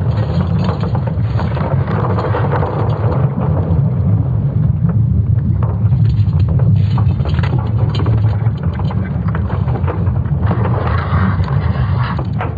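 Sonification of Earth's magnetic field: a deep, steady rumble with irregular crackling and creaking noise above it, the crackle swelling for a couple of seconds near the end.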